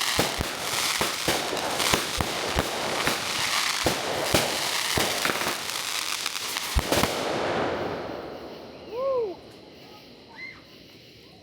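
Consumer firework cake (a 35-shot repeater) firing its last shots: dense crackling with sharp bangs for about seven seconds, then fading away. About nine seconds in, a short pitched call rises and falls.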